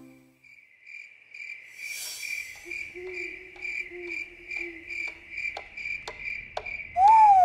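Cartoon night ambience: a cricket chirping in a steady pulsing rhythm, with a clock ticking about twice a second. A low held tone comes in about three seconds in, and near the end a loud tone glides downward.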